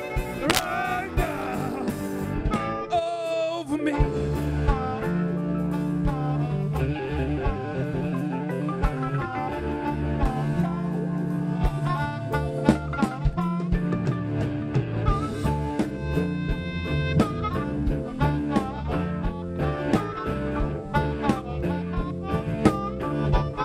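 Live blues-funk band playing an instrumental passage: harmonica played into a microphone over electric guitar, electric bass and a drum kit keeping a steady beat.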